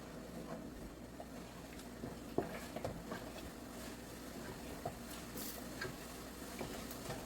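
A spoon stirring tomato paste, onions and tomato mix frying in a pot: scattered soft clicks and scrapes against the pot over a low steady background, the sharpest knock about two and a half seconds in.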